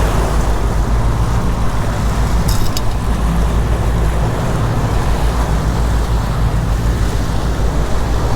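A boat's engine running steadily under trolling, with wind and water noise over it. A brief high clicking about two and a half seconds in.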